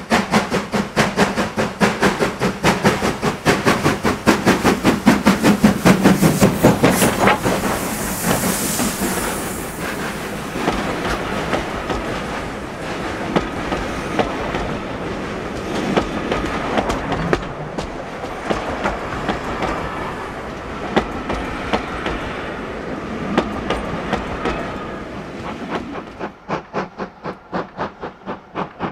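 A steam locomotive working hard past at close range, its rapid exhaust beats loudest as it passes about six seconds in, with a brief hiss just after. Then the coaches roll by with wheel clatter and clicks over the rail joints, and near the end the sound drops suddenly to fainter, steady exhaust beats.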